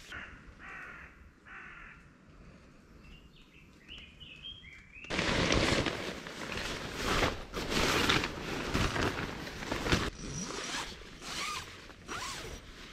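A few short bird calls in a quiet outdoor setting, then, about five seconds in, loud rustling and crumpling of tent fabric and netting as a mosquito-net tent is pulled out and spread on the ground, easing off after a few seconds.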